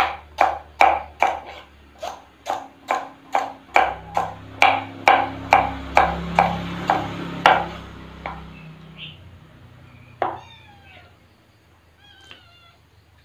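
Kitchen knife chopping taro stems on a wooden cutting board, an even stroke about two and a half times a second, stopping about seven and a half seconds in. Then a kitten meows a few times.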